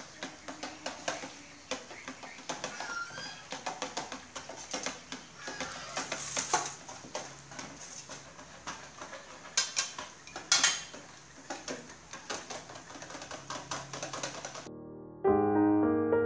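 Skewered beef meatballs and quail eggs deep-frying in a wok of hot oil, the oil crackling and popping irregularly, with a few sharper cracks and clinks of a metal ladle against steel bowls. Near the end it cuts off suddenly and piano music begins.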